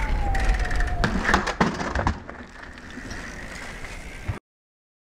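BMX bike on concrete: a scrape whose pitch slides down, then a cluster of hard knocks as the bike comes down, then the tyres rolling with a thin steady whine until the sound cuts off abruptly near the end.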